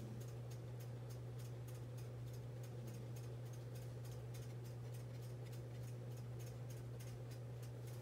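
Quiet room tone: a steady low electrical hum under faint, evenly spaced ticking, about three or four ticks a second.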